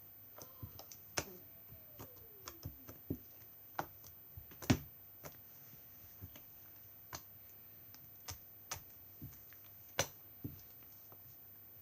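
Homemade clear-glue glossy slime being worked by hand, giving small irregular clicks and pops. The loudest pop comes a little before the middle, and another strong one near the end.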